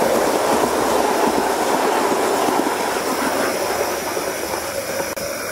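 A Gauge 1 model train's coaches rolling past on garden-railway track, the wheels running on the rails, the sound gradually fading toward the end as the train moves away.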